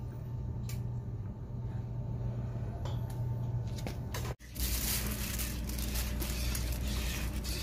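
Steady background noise: a low hum with a few faint clicks. About four seconds in it cuts off abruptly and gives way to a steadier hiss over a low rumble.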